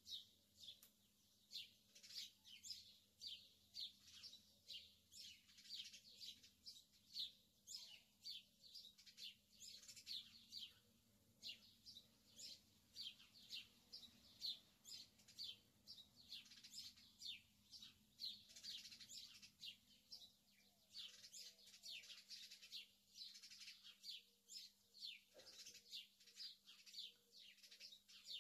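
Faint birdsong: a continuous run of short, high chirps, several a second, each dropping slightly in pitch.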